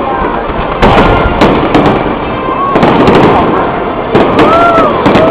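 Aerial fireworks going off in a quick irregular series of sharp bangs and crackles, with people's voices and exclamations underneath.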